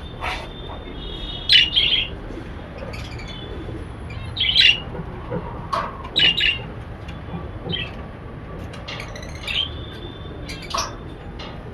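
Many caged lovebirds and budgies chirping together: short, high calls overlapping one another, loudest about one and a half, four and a half and six seconds in.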